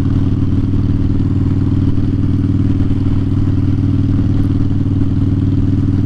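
2009 Harley-Davidson Dyna Fat Bob's V-twin engine running steadily through Vance & Hines Short Shots exhaust, its pitch holding level as the bike cruises.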